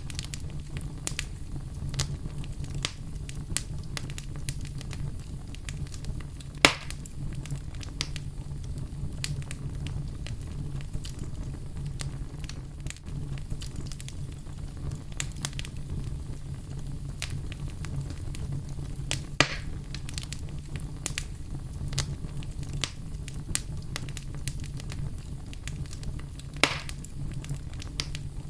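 Wood fire burning in a fireplace: a steady low rumble of flames under frequent small crackles, with three louder pops spread through, about a quarter, two thirds and nine tenths of the way in.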